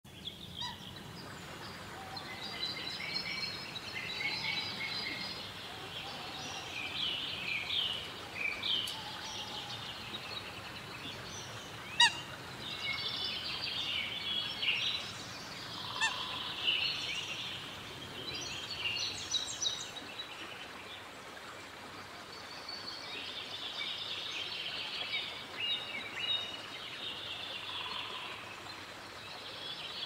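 Birds calling: many short, overlapping chirps and calls, with a sharp click about a third of the way in and another a little later.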